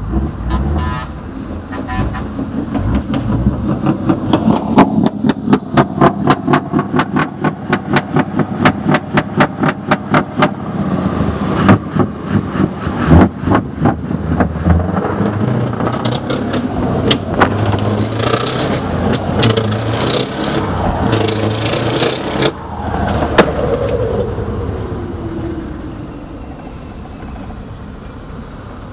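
Scania V8 truck engine, tuned past 1000 hp with a changed turbocharger and a heavily modified exhaust, revving hard under way. A rapid, even run of sharp cracks and pulses fills the first third, and about two-thirds through the revs drop away in a falling pitch.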